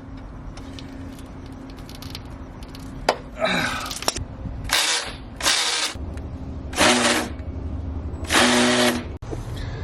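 Handheld power tool, a drill or driver, run in four short bursts of about half a second each, trying to turn a rounded bolt that will not come loose.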